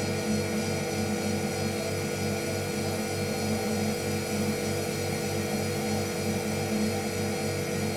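A steady droning hum with a low throb pulsing about four times a second under several held tones.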